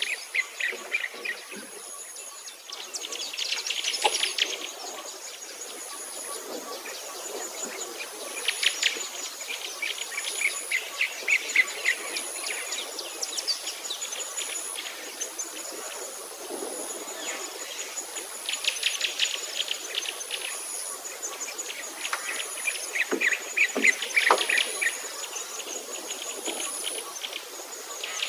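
Birds singing in fast trilled phrases that recur every few seconds, over a high, thin chirp that pulses on and off about once a second.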